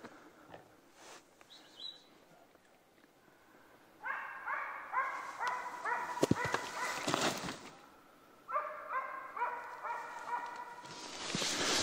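Karelian bear dog barking at bay on a moose: two runs of evenly spaced barks, about two or three a second, the first starting about four seconds in and the second after a short pause.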